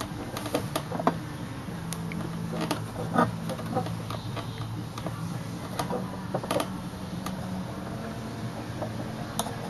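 Scattered light clicks and taps of a bent steel exhaust tube being handled and fitted into a header flange hole, over a steady low hum.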